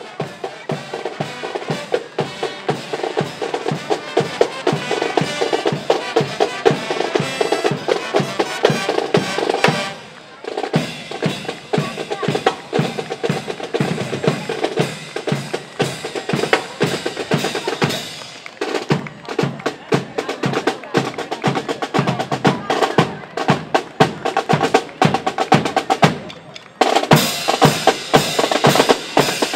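Marching drum line playing a cadence, snare drums and bass drums striking in a steady rhythm, with brief breaks about ten seconds in and near the end.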